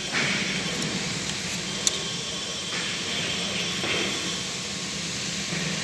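Mastic marble adhesive being hand-mixed with its hardener: irregular scraping and stirring strokes, with one small click about two seconds in, over a steady background hiss.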